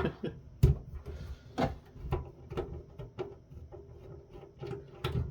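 Sharp clicks and knocks of hand tools and loose screws against the conferencing unit's case as its lid screws are taken out, about seven at irregular intervals, the loudest near the start.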